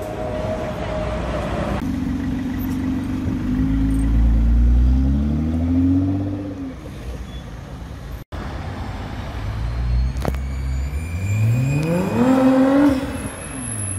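Nissan GT-R's twin-turbo V6 revving, its pitch rising and falling, then accelerating hard with the pitch climbing steadily for about two seconds before dropping off near the end.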